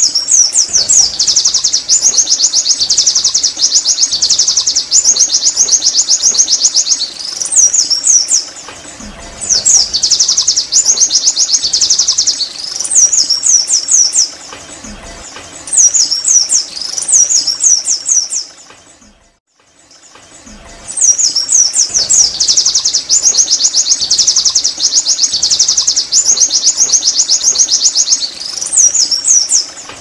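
White-eye (pleci) song: long runs of rapid, high-pitched twittering notes in phrases several seconds long, separated by short pauses. There is a break of about a second roughly two-thirds of the way through.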